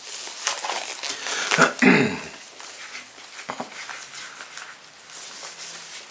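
Plastic crinkling and crackling as a CD case and its wrapping are handled, with a louder burst about two seconds in, then quieter rustling and a single click.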